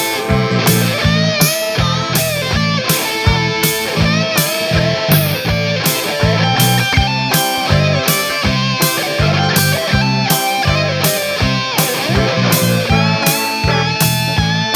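Instrumental rock music led by electric guitar over a steady drum beat.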